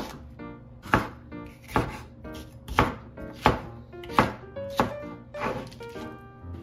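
Kitchen knife slicing green peppers into thin strips on a cutting board: about nine sharp knocks of the blade hitting the board, one every half second to a second.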